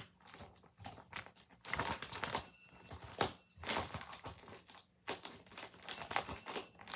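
Plastic binder sleeves and trading cards rustling and crinkling as they are handled and pages are flipped, in irregular bursts with short pauses.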